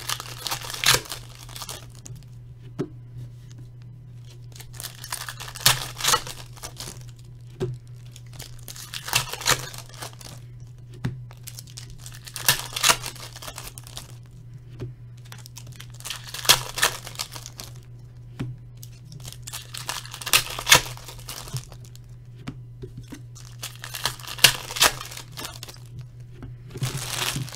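Foil wrappers of 2008-09 Bowman Chrome basketball card packs being torn open and crinkled one after another, a burst of tearing about every three to four seconds, over a steady low hum.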